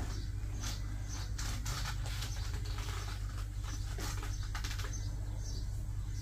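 Irregular light clicks and taps over a steady low hum.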